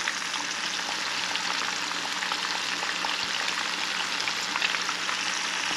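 Small batch of battered burbot pieces flash-frying in hot oil: a steady sizzle with fine crackling throughout.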